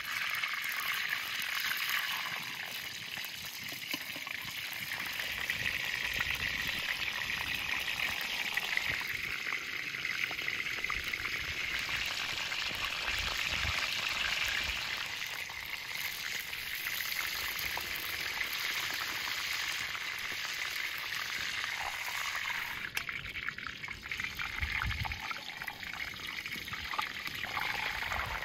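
Cockerel pieces sizzling steadily in hot oil in a steel wok over a wood fire.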